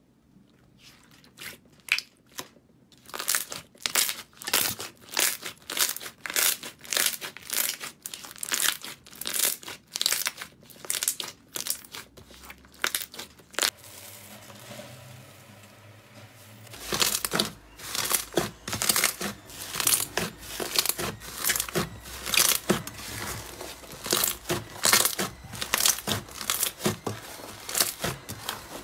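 Crunchy slime being squeezed and pressed, giving rapid, irregular crackles and pops. The crackling eases for a few seconds around the middle, then picks up again.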